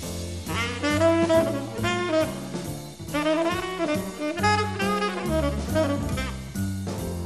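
Small jazz group playing in swing style: a saxophone plays the lead line in short phrases over a bass line and rhythm section.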